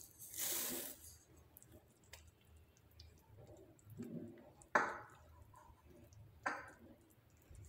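Thick milk-and-bread pudding being stirred in a steel saucepan with a spatula, with soft wet squelches. A short hiss near the start as sugar is tipped in from a small cup. Two sharp knocks of the spatula against the pan, about five and six and a half seconds in.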